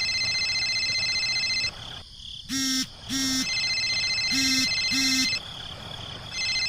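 Electronic-sounding tones: a steady high-pitched tone that cuts off and comes back a few times, with four short buzzy beeps about halfway through.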